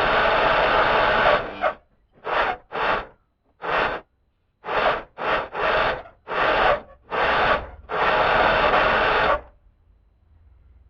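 Lawn tractor's small engine being cranked by its electric starter without catching: one long crank that stops a second or two in, then a string of short cranks, the last one longer. The owner takes it for an engine getting no spark, with the spark plug possibly covered with PB Blaster.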